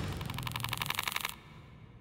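Rapid, evenly spaced mechanical clicking, about twenty clicks a second, that stops abruptly a little over a second in.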